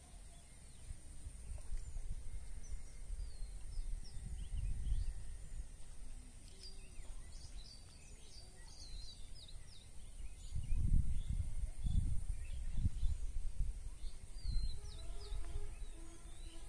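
Outdoor ambience of small birds chirping and twittering, with gusts of low rumbling on the microphone that are loudest about eleven to thirteen seconds in.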